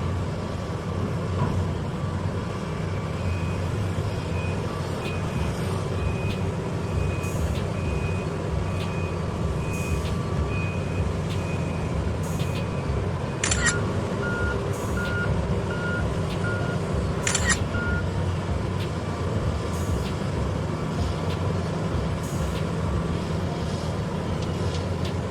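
Heavy mining machinery engines running with a steady low drone while a reversing alarm beeps over and over for about ten seconds. Just past the middle, a lower-pitched beep sounds between two short, sharp hisses.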